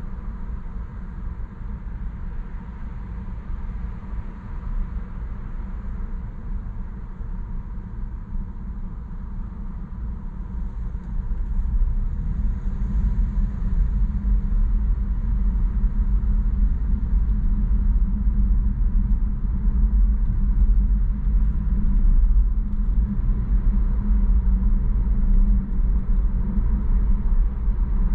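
Low rumble of a car's engine and road noise heard from inside the cabin, getting louder about twelve seconds in as the car pulls away from stopped traffic and picks up speed.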